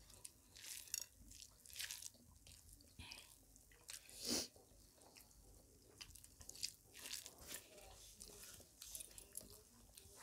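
Quiet close-up eating sounds: chewing mouthfuls of rice and curry and fingers mixing rice on a plate, with scattered soft smacks and clicks and one louder one about four seconds in.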